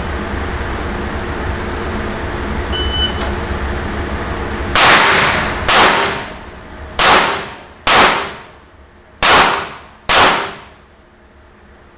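A short electronic beep, like a shot timer's start signal, then six handgun shots fired indoors in three pairs, each shot ringing off the range walls.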